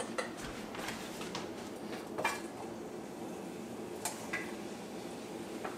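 Light kitchen clatter as sliced bell pepper is tipped from a cutting board into a frying pan: a few scattered clicks and knocks of board, knife and pan over a steady faint hiss.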